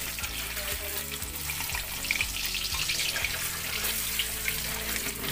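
Paneer cubes frying in hot oil in a kadhai: a steady sizzle with many small crackles.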